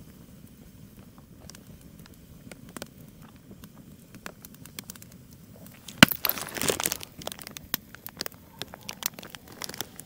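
Wood campfire crackling with scattered sharp pops. About six seconds in, a loud second or so of plastic snack-wrapper crinkling, then more scattered crackles.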